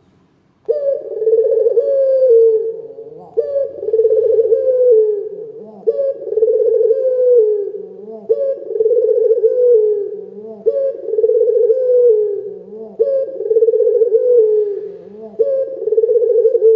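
Caged puter lokal dove, a pale ringneck-type collared dove, cooing loudly. It repeats the same rolling coo phrase about every two and a half seconds, starting about half a second in, each phrase ending on a short lower note.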